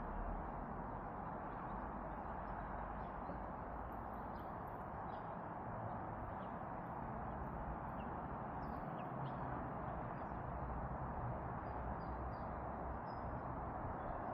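Steady background hiss with faint, scattered short chirps of small birds.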